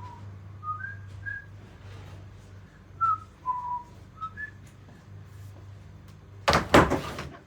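Someone whistling a handful of short, scattered notes, over a steady low hum. Near the end a loud, noisy burst lasting under a second cuts in.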